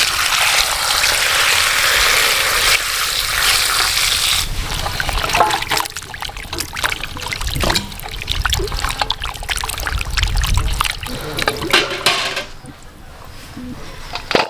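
Water pouring steadily onto a heap of chicken feet in a metal bowl for about four seconds. After that come irregular wet splashes and clatters as a hand works through the feet in the water, and these fade near the end.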